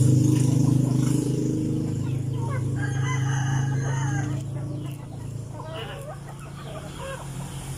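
A rooster crows once, a drawn-out call of about two seconds starting a little over two seconds in, followed by shorter clucking calls from the chickens. Under them a steady low engine drone runs and fades away about halfway through.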